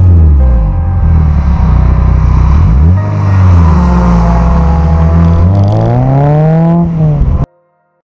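Car engine heard through a bonnet-mounted camera as the car drives on a race track, its pitch falling, dipping and climbing again about three seconds in, then rising once more before cutting off abruptly near the end.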